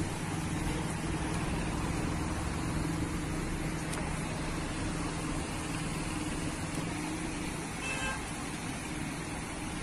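Traffic through flooded streets: a steady wash of car and engine noise with a constant low hum, and a short high toot near the end.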